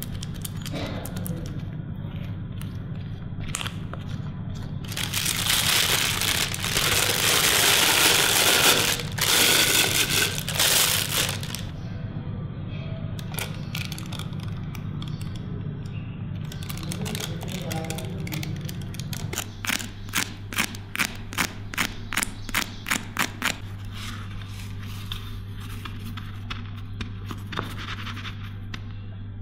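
Kitchen sounds over soft background music: a silicone spatula scraping melted chocolate through a metal sieve, then several seconds of loud rushing noise, and later a run of quick, even strokes, about three or four a second.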